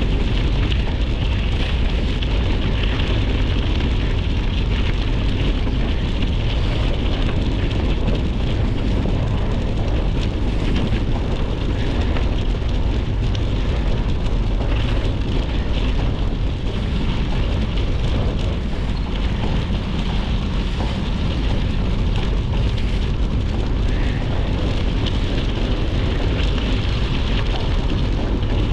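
Wind rushing over the microphone of a moving Trek Checkpoint gravel bike, with its tyres crackling steadily over snowy gravel and dirt.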